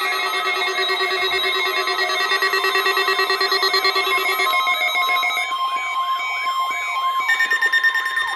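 Weather radio emergency alert audio: a dense mix of steady electronic tones with repeated warbling, siren-like sweeps. About halfway in, a steady, piercing warning alarm tone sets in, and the other tones change again near the end.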